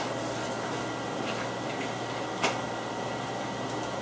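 Steady background hiss with one short, sharp click about two and a half seconds in and a fainter tick a little over a second in.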